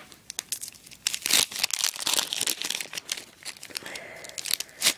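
A 1990 Bowman baseball card pack wrapper being torn open and crinkled by hand: irregular crackling and tearing, with one sharp loud crackle near the end.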